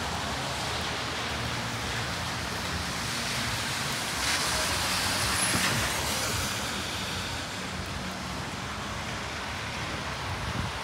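Traffic on a rain-wet city street: a steady low engine rumble under a constant hiss, with one vehicle's tyres hissing past on the wet road about four seconds in.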